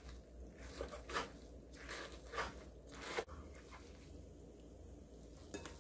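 Chef's knife cutting through soaked wakame seaweed onto a wooden cutting board: a string of soft, quick chops in the first three seconds or so, then quieter.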